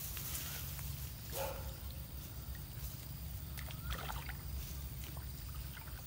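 Small water splashes and rustles as the baited line of a long bamboo fishing pole is worked into muddy canal water, over a steady low rumble. A couple of sharper clicks come about a second and a half in and again around four seconds.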